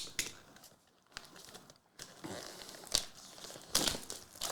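Plastic wrap on a hockey trading-card hobby box being torn and crumpled as the box is opened, in irregular crinkling rustles with sharper crackles near the end.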